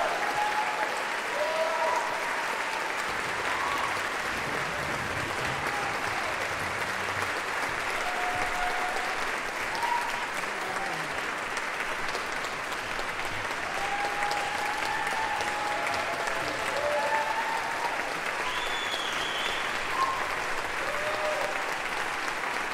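A concert hall audience applauding steadily after the symphony's final chord, with a few voices calling out and cheering over the clapping.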